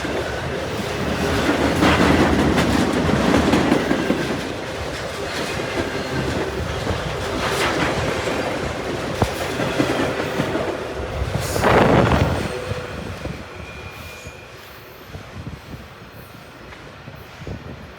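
CN freight train's cars rolling past at speed: wheels clattering over the rail joints with some wheel squeal, two louder surges, then the noise fades away about two-thirds of the way through.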